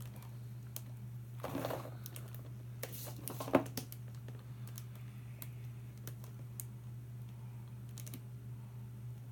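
Small plastic toys handled in the fingers: scattered light clicks and taps, two short rustles, and one sharper knock about three and a half seconds in, over a steady low hum.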